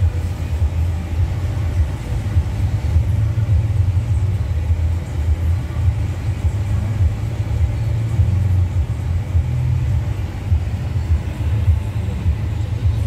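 Steady low rumble of engine and road noise heard from inside the cabin of a 2022 Dodge Challenger on the move.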